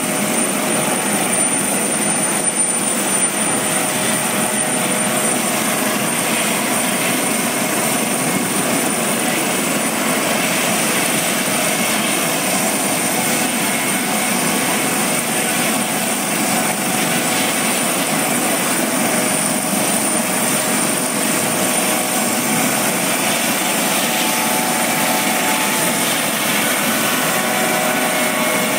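US Coast Guard MH-65 Dolphin helicopter's twin turboshaft engines and rotors running on the ground while it taxis, a steady loud rotor and engine noise with a steady high whine over it.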